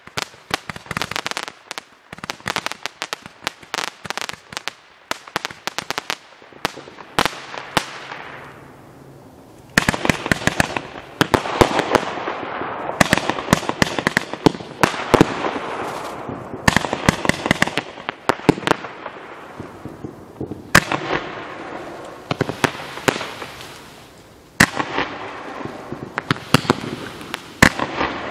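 A 38-shot consumer fireworks cake firing in quick succession, a steady string of sharp launch bangs and breaks. Several waves of dense crackle swell and fade as the shells burst.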